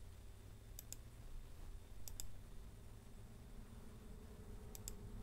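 Computer mouse button clicking three times, each click a quick pair of sharp ticks, spread out over several seconds, over a faint low hum.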